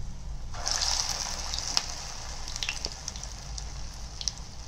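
Urad dal vadai frying in hot oil: a steady sizzle with scattered crackles, swelling suddenly about half a second in.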